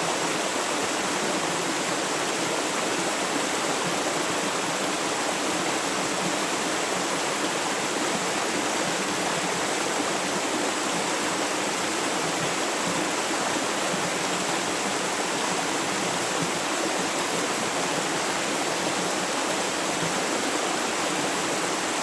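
Flowing river water: a steady, even rushing with no breaks or changes.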